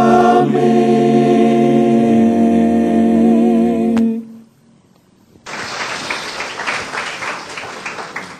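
Eight-voice mixed a cappella group holding the final chord of a Tamil hymn, with the bass dropping lower about two seconds in, until the chord cuts off about four seconds in. After a second's pause, audience applause.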